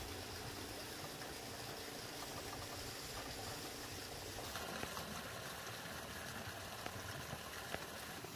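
Pesticide spray hissing from a hose-fed spray wand over orange trees, against a steady motor hum. The spray sound brightens about halfway through, with a few faint clicks near the end.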